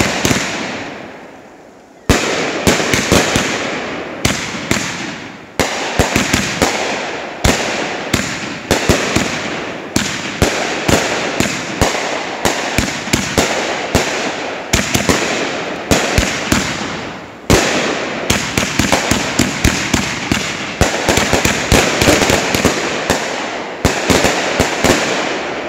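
500-gram consumer fireworks cake firing shot after shot, roughly one every second or so, each shot a sharp bang followed by a dense crackling tail as the burst breaks. Firing resumes after a short lull about two seconds in.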